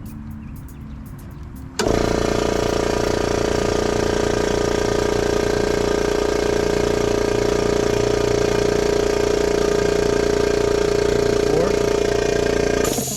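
Small 120-volt oil-lubricated home air compressor switching on about two seconds in and running steadily, then stopping abruptly near the end.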